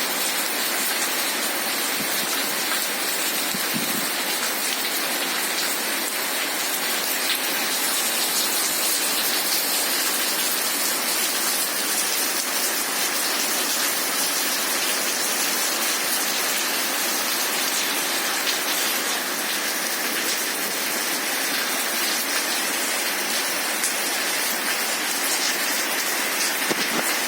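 Heavy rain falling steadily: a dense, even hiss with scattered ticks of drops.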